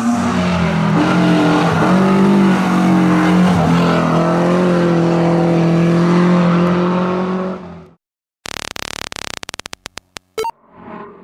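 Race car engine running hard at high revs, its pitch dropping and climbing through several gear changes and then holding steady before it cuts off abruptly about eight seconds in. A rapid run of sharp clicks follows near the end.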